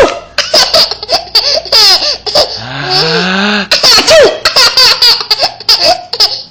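A young child laughing hard in rapid, high-pitched bursts. About three seconds in, a deeper voice briefly rises in pitch beneath it.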